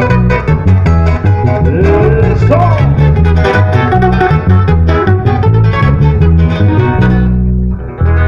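Live band playing a tropical medley on guitars with a strong bass line, loud throughout, with a brief dip near the end before the music carries on.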